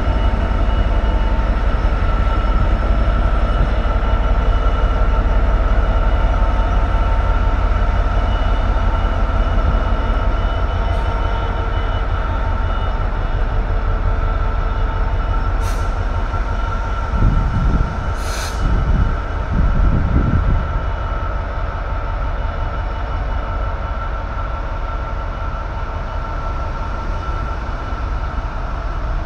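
Freightliner Class 66 diesel locomotive's two-stroke V12 engine running with a loaded stone train: a steady low drone under a steady high whine. Two short hisses come about halfway through, followed by a few low surges of rumble.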